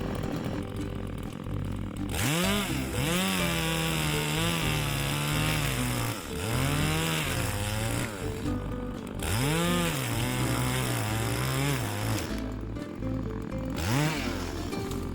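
Two-stroke chainsaw revved up several times, each time speeding up quickly, holding for a second or two, then dropping back toward idle.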